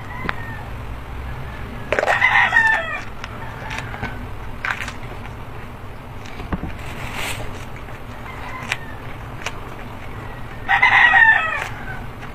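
Rooster crowing twice, about eight seconds apart, each crow lasting about a second.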